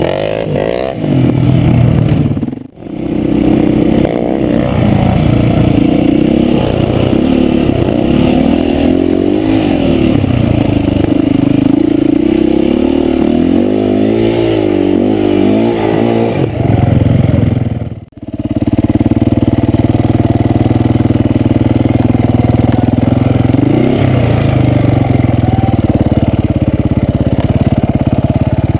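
Four-stroke single-cylinder dirt bike engine running hard on a trail, its pitch rising and falling with the throttle. The sound drops out sharply for a moment twice, about 3 seconds and 18 seconds in, and the engine runs at a steadier pitch after the second drop.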